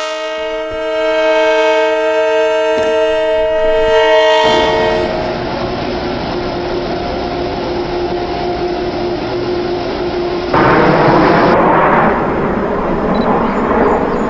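The K5LLA air horn of an LIRR DM30AC diesel locomotive sounds a chord for about four and a half seconds. The passing train's engine and the rumble of its wheels on the rails follow, getting sharply louder about ten and a half seconds in.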